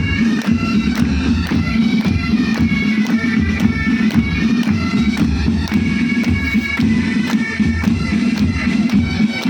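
Pipe band playing: bagpipes holding a steady drone under a skirling melody, with drum strokes keeping an even beat.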